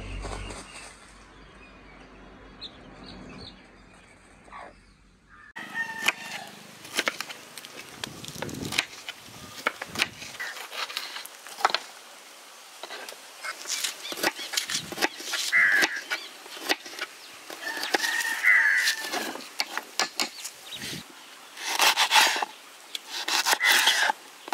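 Chickens moving about, with short clucking calls and bursts of wing-flapping among scattered clicks and knocks; a low steady hum fills the first few seconds.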